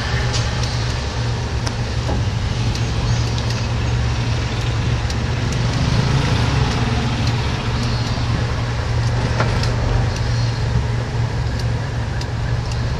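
Steady road and engine noise from inside a moving passenger van: a constant low rumble with a few brief rattles or clicks.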